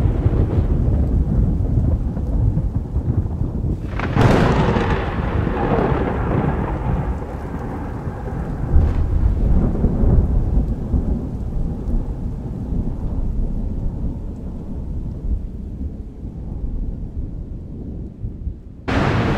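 Thunder rumbling steadily, with a sharp crack about four seconds in that rolls away over several seconds and a fainter crack a few seconds later, over rain. Near the end a loud hiss starts abruptly.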